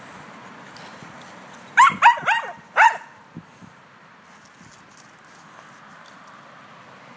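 Small black-and-tan dog barking four short times in quick succession about two seconds in, eager for a snowball to be thrown.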